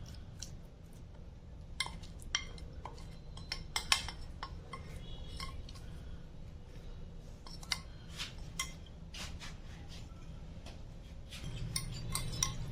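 A cooking utensil clinking and scraping against a pan at irregular moments while spice paste is worked into raw pieces of rohu fish.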